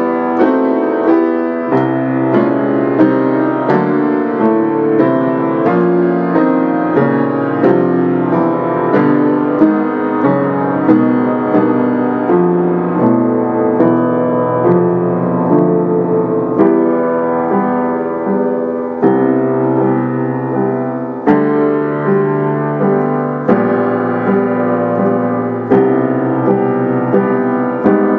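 Yamaha piano playing a passacaglia: full two-handed chords with a new chord struck about every second, steady and unbroken.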